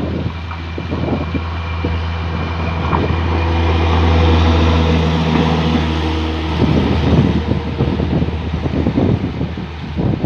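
Train passing close by with a steady low rumble; about three seconds in its horn sounds one steady, several-toned blast for about three and a half seconds and cuts off sharply, followed by a rough clatter of wheels over the rails.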